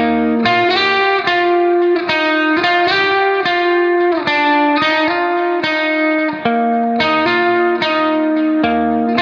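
Background music: a guitar playing a melody of plucked notes with an effects sound.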